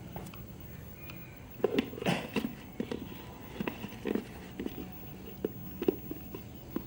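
Halved lime being twisted on a hand citrus squeezer: irregular clicks and knocks that start about one and a half seconds in, with the densest cluster near two seconds and scattered single clicks after.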